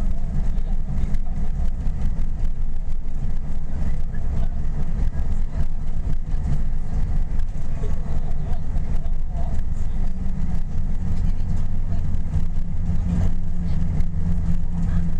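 Steady low rumble of engine and tyre noise from a vehicle driving at speed, heard from inside the cabin.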